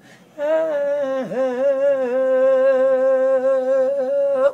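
A man's unaccompanied singing voice holding one long note. It starts about half a second in and dips sharply in pitch once, about a second in.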